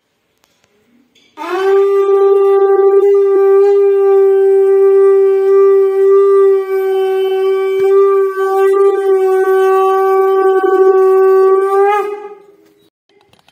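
Conch shell (shankh) blown in one long steady note lasting about ten seconds, starting about a second and a half in and stopping shortly before the end.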